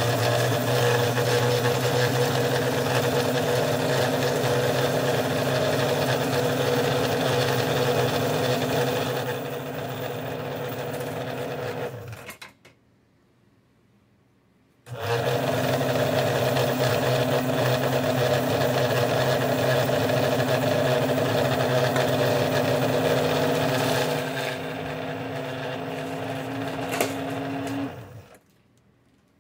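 The built-in bean grinder of a PowerXL Grind & Go Plus coffee maker grinding coffee beans: a steady motor whirr in two long runs, with a pause of about two and a half seconds between them near the middle. Each run gets quieter for its last few seconds before the motor stops.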